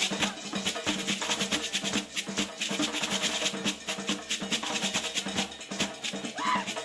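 Traditional West African drumming: a fast, dense rhythm of many quick drum strokes with no break. A brief high tone rises and falls near the end.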